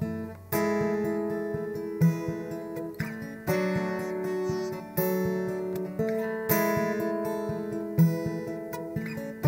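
Acoustic guitar played solo: a strummed chord about every second and a half, each left to ring, in an instrumental break between sung verses of a slow folk song.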